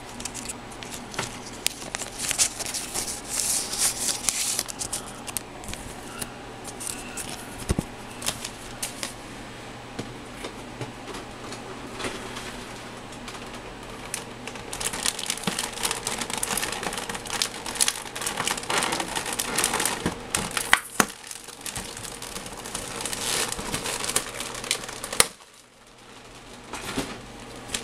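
Clear plastic bags holding model-kit parts crinkling and rustling as they are handled, on and off, with a brief lull near the end.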